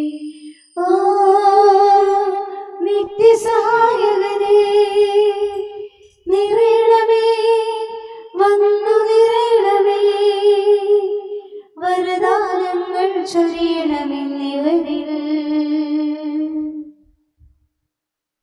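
A single high voice singing a Malayalam hymn to the Holy Spirit as a church Mass opens. It sings slow phrases of long, held notes with vibrato and stops about a second and a half before the end.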